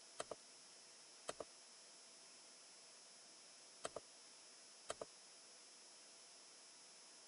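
Computer mouse button clicking four times over a faint steady hiss, each click a quick pair of ticks.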